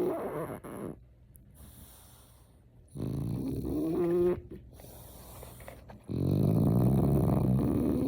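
French bulldog snoring in its sleep: an earlier snore fades out just after the start, then two more follow about three seconds apart. The first has a whistling tone that rises in pitch; the last is longer and rough, with no whistle.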